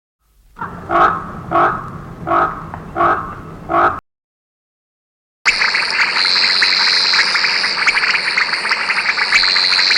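A frog croaking five times at an even pace. After a short silence comes a second clip: a loud, steady, high-pitched buzzing chorus with rapid pulsing.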